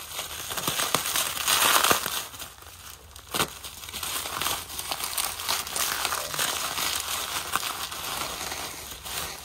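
Plastic bubble wrap crinkling as it is handled and peeled open by hand, loudest about two seconds in, with a single sharp snap about three and a half seconds in.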